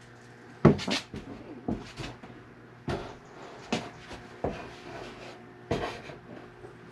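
Butcher block countertop knocking and bumping against the wooden cabinet frame as it is worked into place: about eight sharp, irregular knocks.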